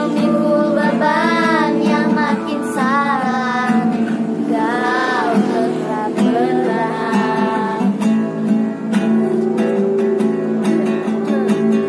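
Acoustic guitar strummed, with girls' voices singing a melody over it. The singing is strongest in the first few seconds and thins out in the second half, leaving mostly guitar.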